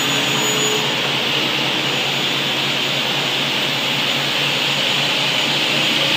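Sliding table panel saw running steadily while a white board is pushed through the blade on its sliding carriage. The machine noise is a constant hiss-like whine with no breaks.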